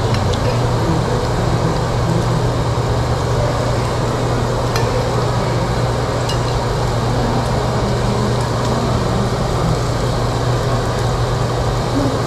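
Beef sizzling on a tabletop Korean barbecue grill over a steady low hum of the grill's extraction ventilation, with a few light clinks of cutlery.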